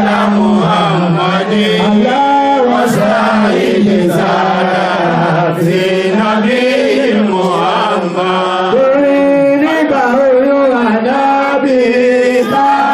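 A man chanting a melodic Islamic devotional song in praise of the Prophet Muhammad (salawat) into a microphone, with long held and gliding notes.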